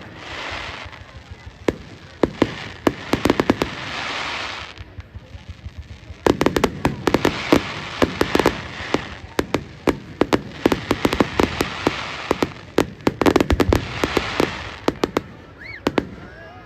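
Fireworks display: rapid bangs and pops come in waves with hissing, crackling bursts, and a couple of short whistles near the end.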